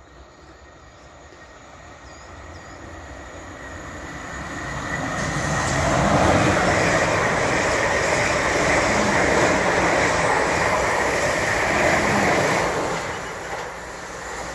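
Two coupled Class 444 Desiro electric multiple units passing through at speed: a rush of wheel and rail noise that builds over several seconds, holds loud for about six seconds and falls away quickly near the end.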